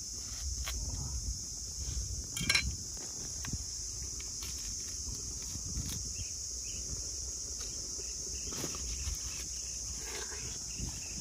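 Steady high-pitched insect drone, with scattered clicks and knocks and one louder crackle about two and a half seconds in.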